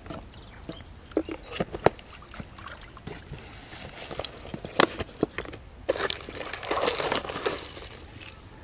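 Dry, coarse ground bait poured and shaken from plastic jars into a steel basin: scattered taps and knocks of the jars on the bowl, with a longer gritty rustle of the grains pouring about six seconds in.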